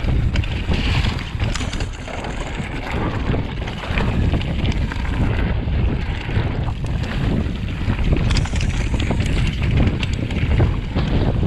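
Wind buffeting the camera microphone over the rumble of mountain-bike tyres rolling down loose, rocky slate trail, with frequent knocks and rattles from a titanium hardtail bike jolting over the stones.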